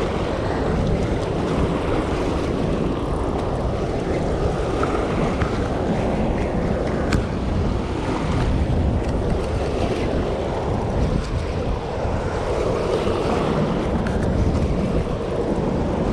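Steady rush of turbulent water pouring from a dam's open spillway gates and churning in the tailwater, with wind buffeting the microphone.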